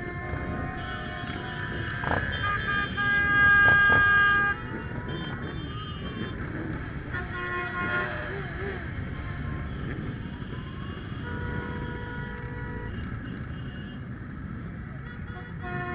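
Many motorcycle engines rumbling at low speed in a slow-moving column, with horns tooting several times. The loudest is a long honk of over a second, about three seconds in.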